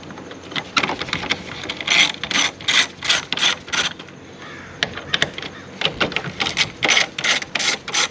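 Small hand ratchet with an extension clicking its pawl as it turns the bolts that hold the Toyota Safety Sense (TSS) sensor mount on the grille. A few scattered clicks at first, then from about two seconds in a steady run of ratcheting strokes, about three a second, with a short pause around the middle.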